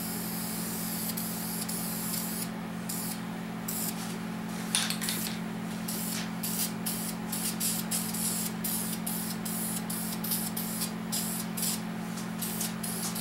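Aerosol spray-paint can hissing in short bursts with brief pauses as black paint goes onto engine cylinder heads; the can is close to empty.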